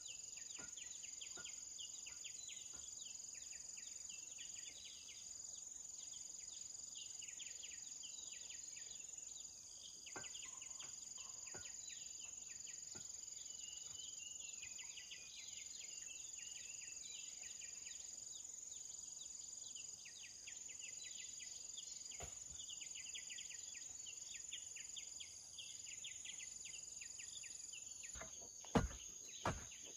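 Forest insects chirring: a steady high buzz with a pulsing band and dense scratchy chirping beneath. A few sharp knocks come near the end.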